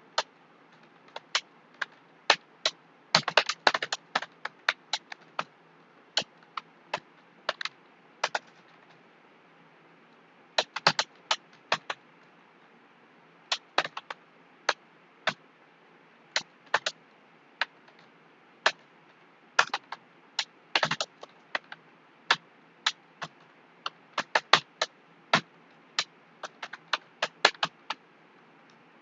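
Typing on a computer keyboard: sharp key clicks in an uneven run, with quick bursts of strokes broken by pauses of a second or two.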